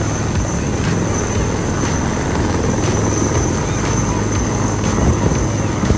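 Steady rumble of a helicopter flying over, loud and unbroken.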